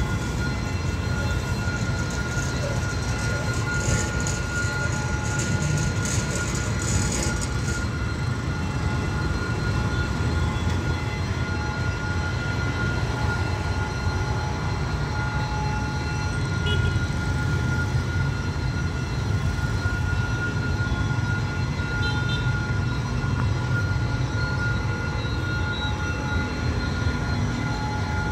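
Diesel-electric locomotive engine running with a steady low rumble throughout, under a steady thin high tone.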